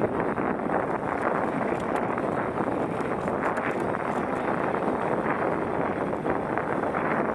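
Steady wind noise buffeting a helmet-mounted camera on a fast mountain-bike descent, mixed with the rumble of the tyres over dry dirt and a few faint rattling ticks from the bike.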